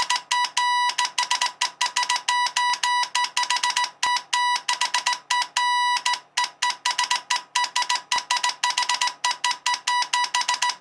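Morse code sent over a walkie-talkie: a single steady beep keyed in rapid short and long pulses, dots and dashes.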